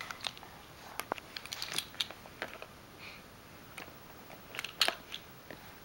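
A six-month-old baby blowing raspberries with her lips: short crackly sputtering spurts, one cluster about a second in and a louder one near the five-second mark.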